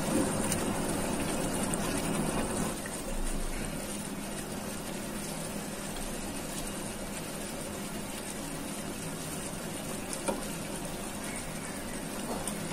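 A pan of thick chicken curry simmering on the stove, giving a steady, watery rushing noise, with a few soft clicks as a plastic spoon stirs it.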